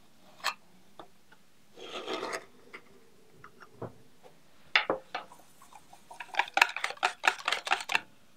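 A metal measuring spoon scrapes across the rim of a baking powder can, then clinks against a stainless steel mixing bowl as the powder is tipped in. Near the end comes a quick run of sharp taps, which stops suddenly.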